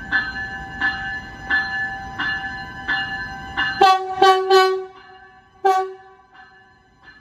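Amtrak Avelia Liberty trainset's bell ringing steadily, about one strike every 0.7 seconds, over a low rumble. About four seconds in come four short, loud horn blasts, and the rumble suddenly drops out while fainter ringing goes on.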